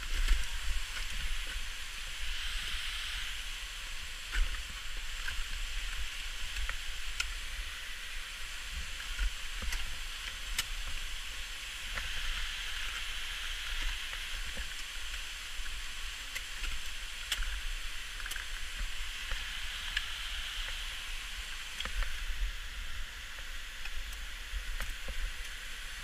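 Wind buffeting an action-camera microphone as an uneven low rumble, under a steady hiss, with a few faint clicks.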